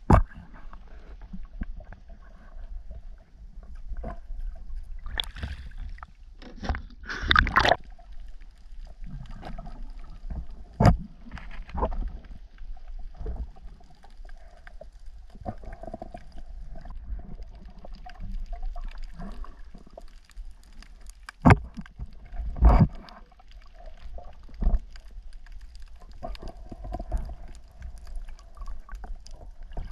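Shallow seawater sloshing and gurgling around someone wading and reaching into it, with scattered sharp knocks and a longer, louder splash about seven seconds in.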